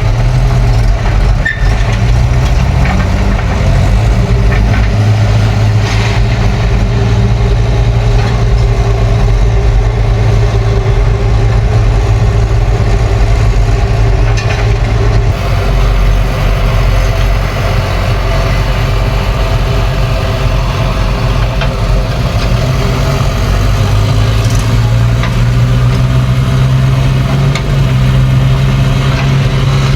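Heavy-machinery diesel engine running steadily and loudly, as on the excavator and tractors loading soil; engine speed eases off about halfway through and picks up again near the end.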